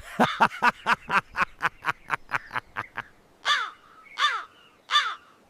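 Crow cawing: a fast run of short caws for about three seconds, then three slower, longer caws with falling pitch.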